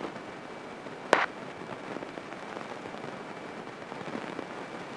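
Light single-engine propeller airplane taxiing, its engine and propeller heard as a steady, crackly hiss through the headset intercom. One short, sharp click comes about a second in.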